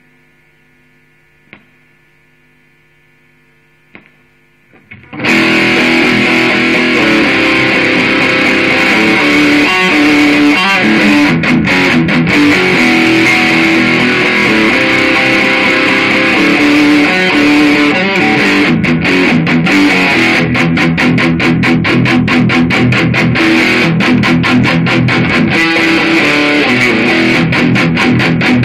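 A low steady hum with a few faint clicks, then about five seconds in an Epiphone Flying V electric guitar comes in loud with heavy distortion, playing metal riffs that carry on without a break.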